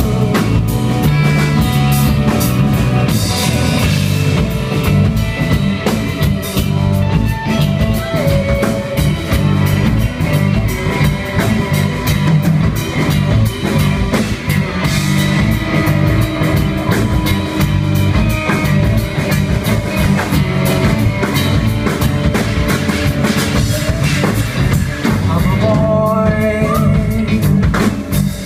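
Live rock band playing loud and steady: drum kit, electric guitars, bass guitar and keyboard, with some singing.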